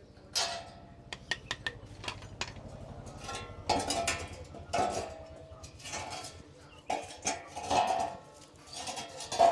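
Metal parts and tools clanking and knocking, several strikes ringing briefly, over a steady low hum.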